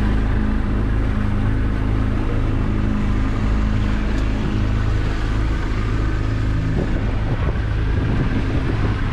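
Mercury 115 outboard motor running steadily with the boat under way, a constant low drone over a rush of wind and water.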